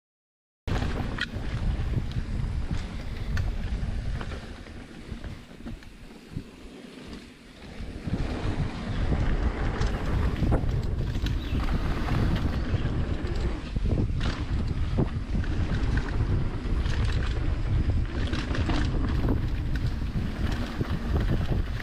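Wind buffeting the rider's camera microphone as a mountain bike rolls down a dirt trail, with scattered clicks and knocks of the bike rattling over bumps. It eases off for a few seconds in the middle, then picks up again.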